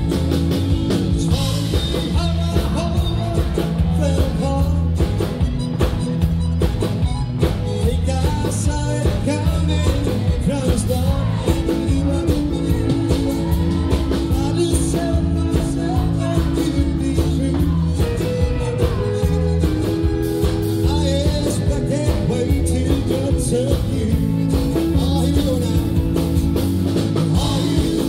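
Live country-rock band playing a song: drum kit, electric and bass guitars, pedal steel guitar and keyboard, with a lead vocal.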